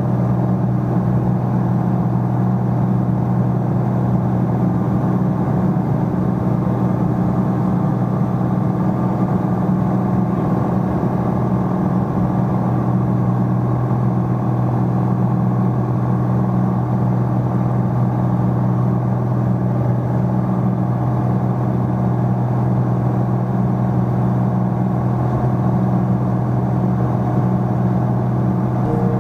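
Piper PA-46 Malibu's single engine and propeller running at a steady, unchanging drone in flight, heard from inside the cockpit.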